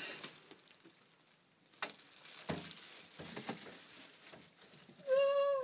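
Scuffling and light patter with a few sharp knocks during an attempt to net a bird loose in a room. Near the end comes a short, loud, high-pitched cry lasting about half a second.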